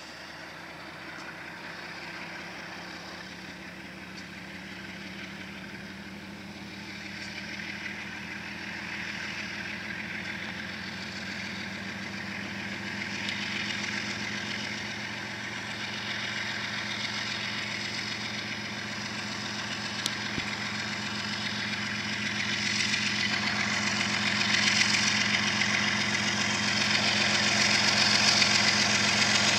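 BNSF diesel locomotives' engines working as the oil train pulls away from a stop, a steady low drone that grows steadily louder as the units come closer, with rising hiss from the moving train; a single short click about two-thirds of the way through.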